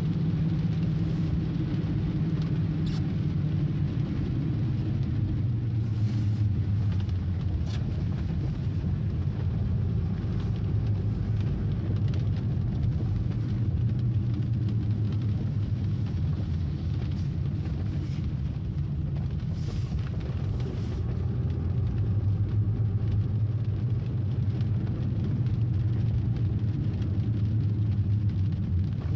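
Car cabin noise on the move: a steady low drone of engine and tyres on wet road, with a light hiss of rain. The drone settles a little lower in pitch a few seconds in.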